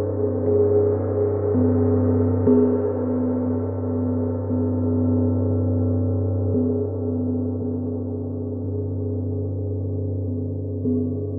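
Gong played continuously in a sound bath: a dense, sustained ringing wash of many tones, renewed by soft strokes every one to four seconds, with the higher overtones slowly fading.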